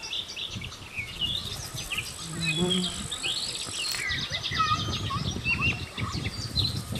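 Outdoor chorus of several birds chirping and calling in quick, varied notes, over a faint steady high-pitched insect drone.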